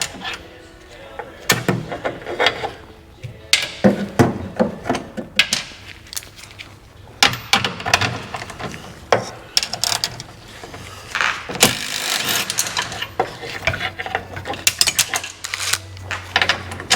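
A ratchet wrench clicking in short runs, mixed with irregular metal clanks and knocks from hand tools on the vehicle body.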